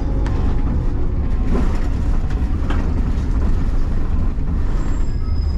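City bus under way: steady low engine and road rumble, with a few short clicks.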